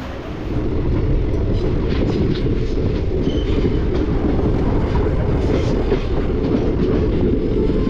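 Passenger train running, the steady rumble of the coach and its wheels on the rails heard from inside the carriage, growing louder about half a second in.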